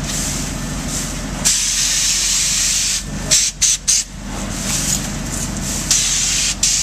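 Spray gun hissing as it sprays a liquid-applied weather barrier onto wall sheathing, cut off and restarted several times in quick succession a little past the middle as the trigger is let go and pulled again. A steady low hum runs underneath.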